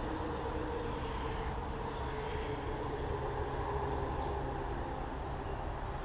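Steady low outdoor rumble and hiss, with a brief high bird chirp about four seconds in.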